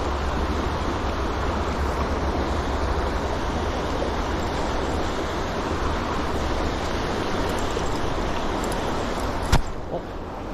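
Fast river water rushing over riffles, a steady noise with a low rumble underneath. A single sharp knock about nine and a half seconds in.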